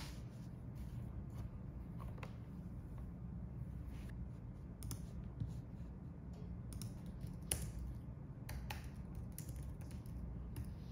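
Scattered light clicks and taps, irregular and a few per second at most, over a steady low hum.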